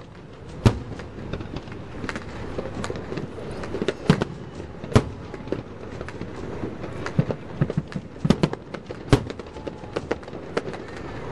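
Aerial fireworks shells bursting in an irregular string of bangs and crackles, with a few much louder reports among them.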